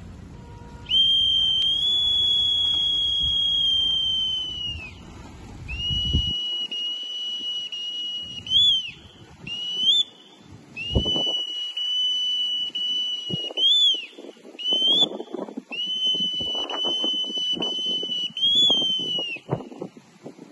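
A whistle blown in four long, steady high notes of a few seconds each, broken by short upward chirps between and at the ends of the notes.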